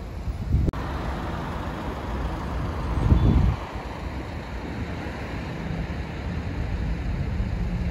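Road traffic and wind noise picked up by a camera on a moving bicycle on busy city roads. The sound changes abruptly less than a second in, and a louder low rumble, like a passing vehicle, comes about three seconds in.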